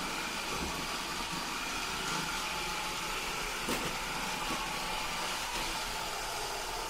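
iRobot Roomba robot vacuum running: a steady whirring hum, with one light knock a little past halfway through.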